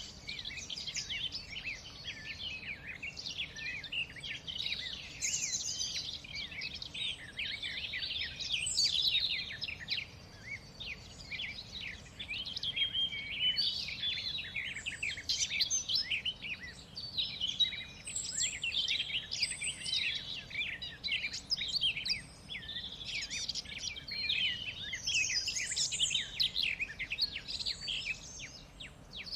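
A chorus of many songbirds, with dense overlapping chirps and trills that go on without a break.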